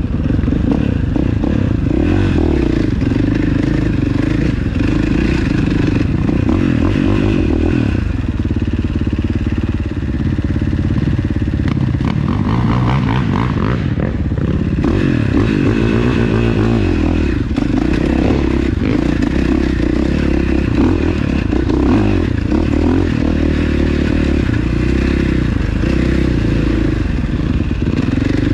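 ATV engine running on a rocky trail, throttle rising and falling, with clattering and scraping from the quad over the rocks.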